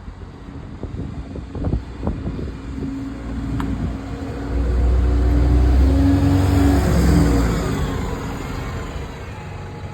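Bus passing close by: its engine builds over a few seconds, is loudest around the middle, then fades, with a whine falling in pitch as it goes past.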